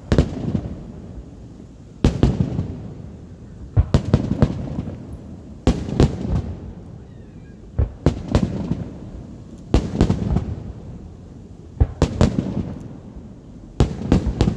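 Fireworks salute: volleys of bangs about every two seconds, each volley a cluster of several sharp bursts, with a low rumbling echo trailing between them.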